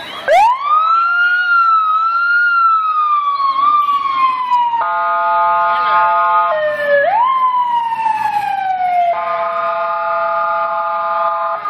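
Emergency vehicle siren wailing, rising quickly in pitch and then slowly falling, twice broken by a long, steady horn blast.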